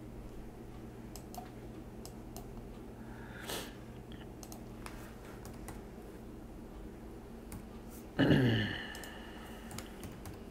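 Faint computer keyboard typing and mouse clicks over a steady low hum, as a value is entered into software. About eight seconds in there is a short, louder sound with a falling pitch.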